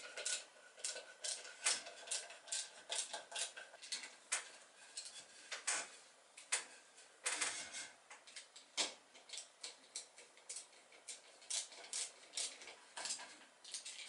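Hand screwdriver driving wood screws back in to fix a wooden keel to a solid wooden hull: a faint run of irregular clicks and creaks, a few every second.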